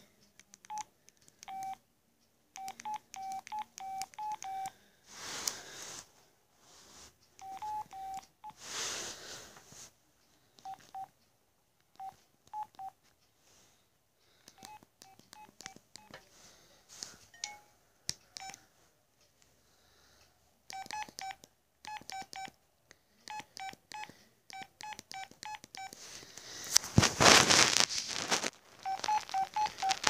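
Flip phone keypad beeping as its buttons are pressed: many short beeps of one pitch, in quick runs with pauses between. A few louder rushes of noise break in, the loudest near the end.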